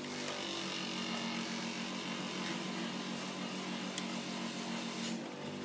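A steady machine hum, joined by a hiss that comes in just after the start and cuts off about half a second before the end, with a single sharp click about four seconds in.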